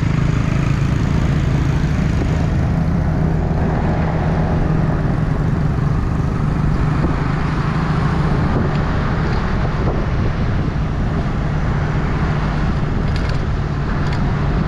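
Motorbike engine running steadily under the rider, with wind and tyre noise on the camera microphone.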